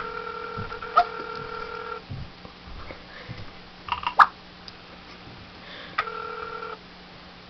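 Telephone ringback tone heard through a phone's speaker: one two-second ring, a four-second pause, then a second ring cut off after under a second as the call is picked up by voicemail. A few small knocks and handling sounds fall in the pause.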